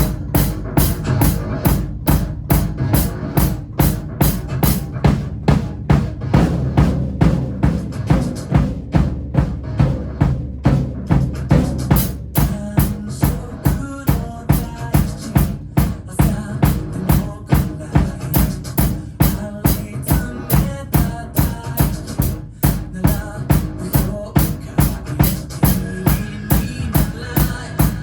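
Drum kit played along to a pop song's backing track: kick, snare and cymbals in a steady, even beat.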